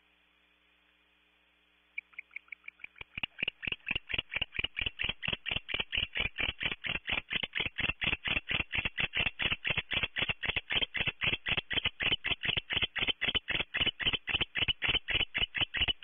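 Barn owl calling inside the nest cavity: a rapid, steady series of short pulses, about five a second, that starts suddenly about two seconds in and keeps going.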